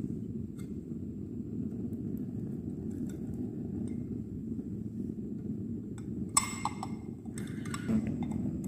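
Metal forceps scraping and clicking against a Petri dish as agar is dug out to make a ditch, with a cluster of sharp clinks about six and a half seconds in and more near eight seconds. A steady low rumble runs underneath.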